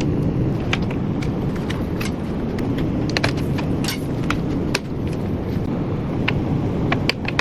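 Light, irregular clicks and taps of plastic display frame parts being fitted together by hand, over a steady low background rumble.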